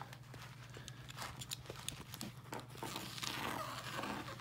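Snap-off utility knife trimming window film along the edge of a window frame: faint scratching with scattered light clicks and taps, busiest a little past halfway.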